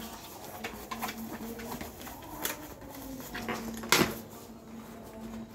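A PU leather backpack being handled: rustling of the material and small clicks of its straps and buckles, with a single sharp knock about four seconds in as the bag is turned upright on the table.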